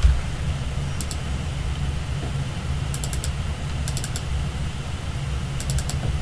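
Computer mouse clicking in quick groups: a single click, then double-clicks opening folders, over a steady low hum.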